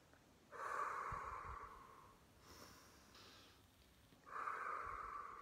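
A woman taking slow deep breaths through her nose, one nostril pressed shut with a finger, as a calming breathing exercise. Two strong breaths about a second in and near the end, each starting suddenly and fading, with fainter breaths between them.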